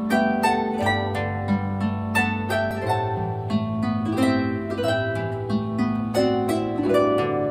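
Harp background music: a melody of plucked notes over lower bass notes, each note ringing and fading after it is plucked.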